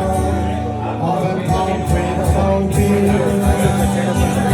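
Live Irish folk band playing a song, with singing over the instruments.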